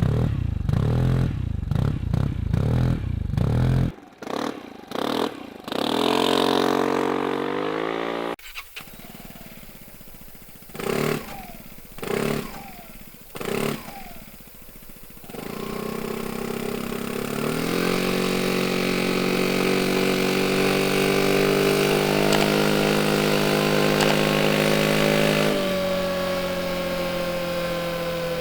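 Vespa GTS 300's single-cylinder four-stroke engine through a Remus exhaust fitted with its ECE road-legal insert. First come quick throttle blips and revs, then three short blips, then a ride in which the engine note climbs steadily and drops sharply near the end as the throttle eases off.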